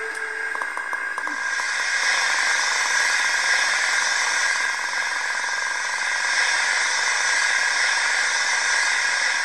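Roco H0 model BR 85 steam locomotive standing, then starting slowly. There is a steady whine, and a steam hiss from its sound decoder sets in about a second in after a few light clicks.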